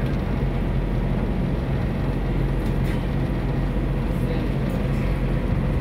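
Friendship water taxi's engine running with a steady low drone.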